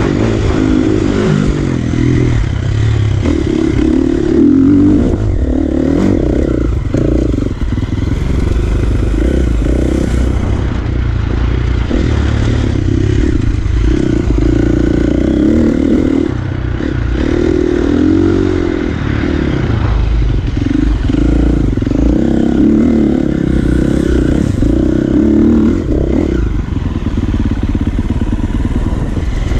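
Dirt bike engine running close by, its pitch rising and falling as the throttle opens and closes.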